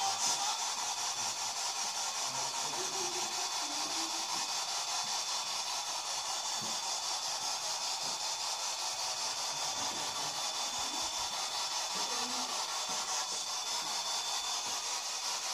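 Steady, even hiss with a faint, thin high-pitched whine running through it, and a few faint low sounds now and then.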